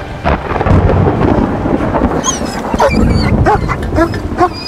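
Thunder rumbling, with a frightened dog whining in short rising and falling whimpers, several in a row near the end.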